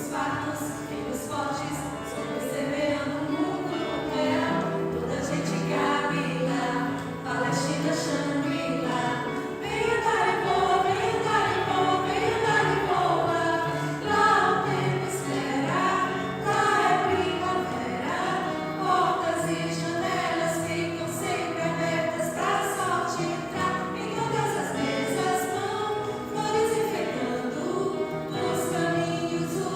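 Choral music: a choir singing over held low notes.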